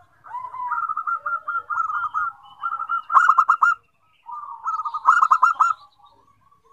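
Zebra dove (perkutut) singing: two phrases of rapid staccato cooing, each building to a louder, quicker run of notes at its end, with a short pause between them.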